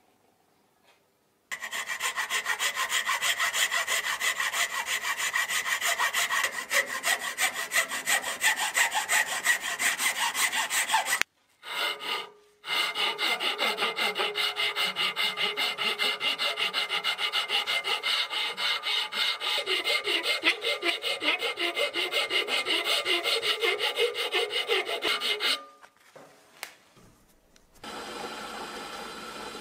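A hand file rasps back and forth in quick repeated strokes on a metal part clamped in a vise, with a brief break about eleven seconds in. Near the end the filing has stopped and a steady machine hum starts.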